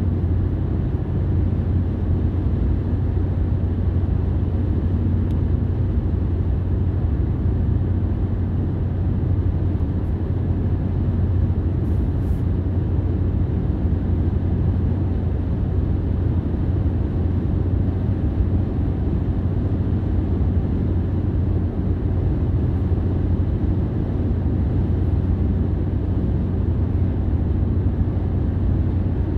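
Steady low rumble of a car driving, engine and road noise running evenly without change.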